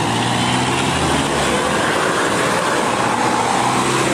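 Road traffic: cars driving past close by, a steady mix of engine and tyre noise.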